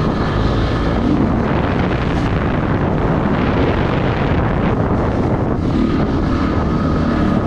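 A 2004 Honda CRF250X's single-cylinder four-stroke engine running under way on a dirt trail, heavily buffeted by wind on the helmet camera's microphone, so the engine is mostly buried in steady wind noise.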